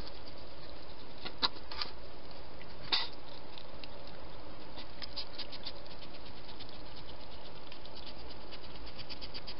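Wild hedgehog eating from a dish: sharp clicking and crunching as it chews, with two louder clicks in the first three seconds and then runs of quick small clicks. A steady hiss underlies it.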